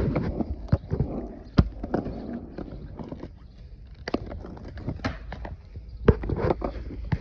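Irregular sharp knocks and clacks, at times about one a second, over a low rumble that fades out about three seconds in.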